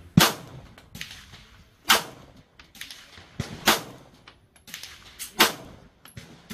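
A 9mm Glock 19 Gen 5 pistol with a DPM recoil reduction spring system, fired one round at a time in slow aimed fire: four loud shots about a second and three quarters apart, each with a short echo. Fainter bangs fall between them.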